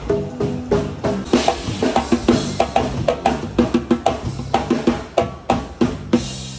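Live percussion played at a sound check: drums and hand percussion struck in a fast, busy rhythm, with sustained low notes running underneath.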